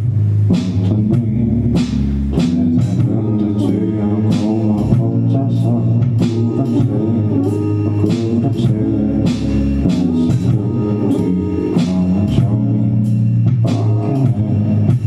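Band music from guitar, bass guitar and drum kit, with a steady beat of drum strokes about twice a second.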